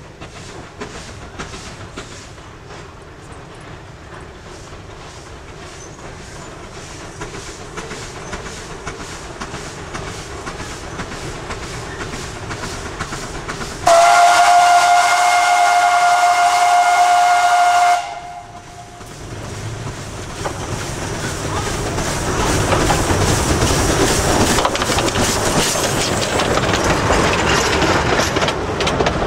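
A narrow-gauge C2-class steam locomotive approaches with steady exhaust beats, then gives one long blast on its steam whistle, about four seconds, around halfway through. After that its passenger coaches roll close past, their wheels clattering over the rail joints and growing louder.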